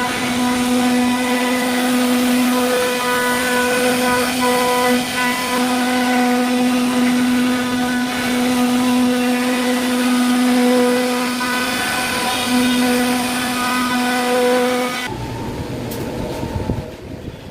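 CNC wood-carving router spindle running at a steady high speed as it carves wood, a constant whine; it cuts off suddenly about fifteen seconds in and gives way to a quieter, different sound.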